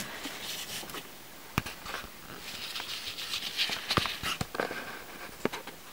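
Handling noise from gloved hands: soft rustling of disposable gloves with a few light clicks and taps as a client's finger and a gel brush are picked up and positioned. The rustling is strongest in the middle.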